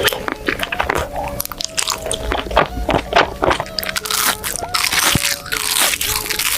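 Crunchy food being bitten and chewed close to the microphone, in many quick sharp crunches, over background music.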